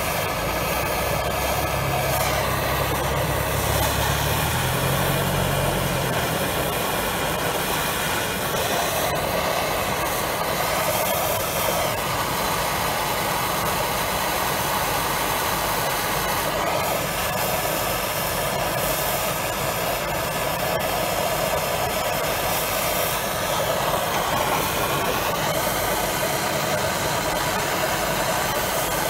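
MAPP gas blowtorch burning steadily, heating a bent towing-eye bracket so it can be bent straight.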